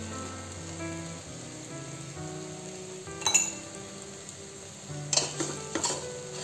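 Soya chunks and masala sizzling as they fry in a pot over a high gas flame, with one sharp click about halfway. From about five seconds in, a steel spoon starts stirring, scraping and clinking against the pot.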